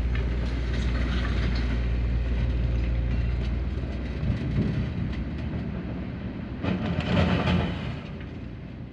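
Heavy diesel engine running steadily, its drone dropping and roughening about four seconds in, with a louder noisy burst of machinery sound around seven seconds before it fades out.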